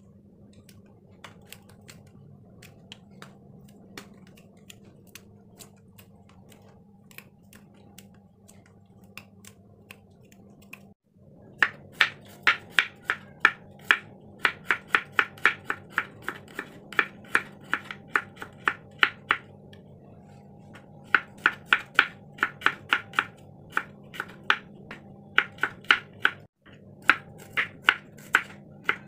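Kitchen knife chopping garlic and shallots on a wooden cutting board: quick runs of sharp knocks, about four a second, after a stretch of faint snips as yard-long beans are cut in the hand.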